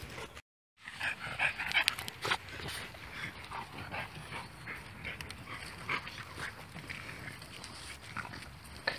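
Dogs of a mixed pack making short high-pitched cries, loudest in a cluster about a second in, then scattered smaller sounds. The audio cuts out completely for a moment just after the start.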